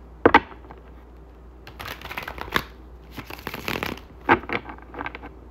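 A deck of tarot cards being shuffled by hand: a couple of sharp taps near the start, two longer rustling passes through the middle, then several quick taps of the cards against each other.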